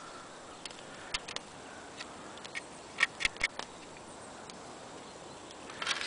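Faint steady hiss with a scattering of light clicks and ticks, clustered about three seconds in, from a hand saw being handled and turned.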